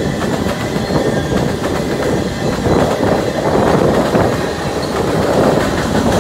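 Freight cars rolling past: a steady rumble of steel wheels on the rails, with rapid clicking as the wheels cross rail joints.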